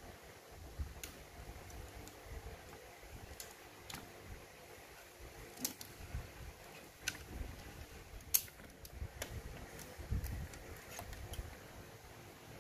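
Faint scattered clicks and handling noise from hands working the plastic parts and wiring inside an opened Sony CFS-1133S cassette boombox, with a dozen or so small sharp clicks and irregular low rumbling from handling.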